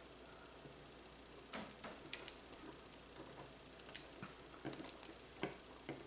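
Screwdriver turning the terminal screw on a replacement power-cord plug, tightening the wire down: a scatter of small, irregular clicks and ticks from the tool and the plug's plastic housing, the sharpest about two seconds and four seconds in.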